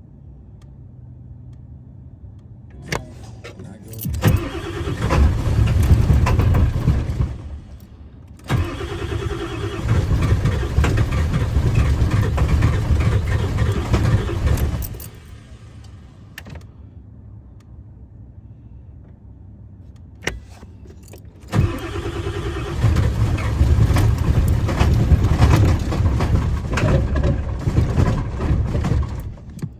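7.3-litre V8 diesel engine being cranked over in three long attempts separated by pauses, with a click just before the first and third: a hard start.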